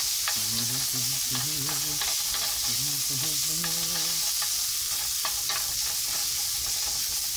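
Onions and peppers sizzling steadily in a frying pan on high heat, browning until they char, with scattered clicks of a utensil stirring them against the pan.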